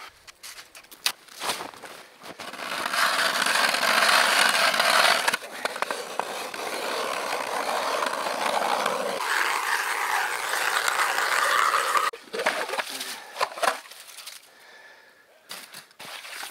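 Hand-cranked ice auger boring through lake ice: a continuous scraping grind of the blades cutting ice for about nine seconds. It then stops, followed by a few short knocks.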